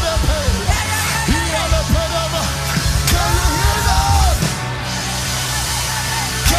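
Live worship band playing loud, driving music with bass and drums, with wordless vocals and calls over it, including one long held note midway; the vocals drop away in the last couple of seconds.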